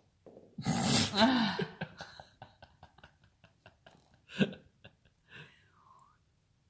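A person's loud voiced exclamation about half a second in, then a run of light clicks that fade over about two seconds. A sharp click comes past four seconds, and a short vocal sound with falling pitch near the end.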